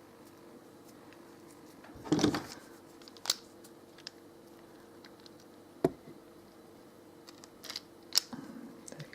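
Automatic wire stripper handled and squeezed: a short rattle of clicks about two seconds in, then a few single sharp clicks spread over the rest, over a faint steady hum.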